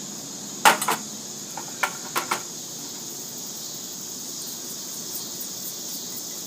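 Steady chirring of crickets throughout, with a few sharp clicks and knocks about a second in and again around two seconds in, the first the loudest.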